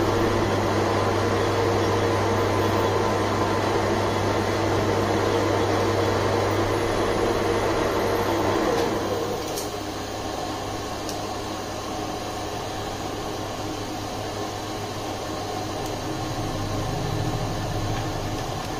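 Manual metal lathe running while turning a steel workpiece, a steady machine hum with a faint whine. About nine seconds in the cutting noise drops away and a quieter low hum carries on.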